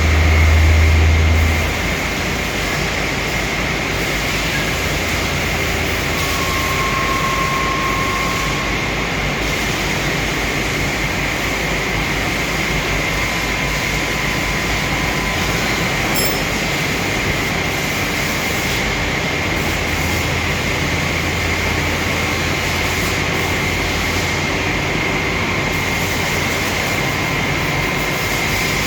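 Machine running steadily: an even rushing noise with a constant high whine, and a low hum that swells for the first second or two and again about two-thirds of the way through.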